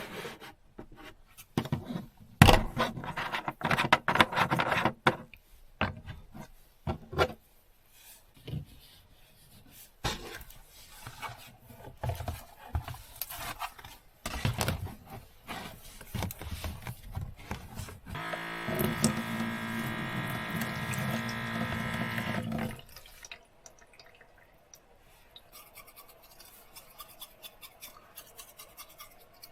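Clattering and knocks from things being handled, with water sounds. A little past halfway, a steady buzzing hum runs for about four seconds, then stops.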